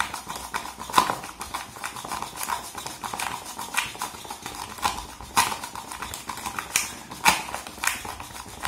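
A hand-held utensil beating instant coffee in a clear plastic container, clicking against the container's sides in quick, irregular strokes, about two to three a second. This is hand-whipping dalgona coffee until it thickens into foam.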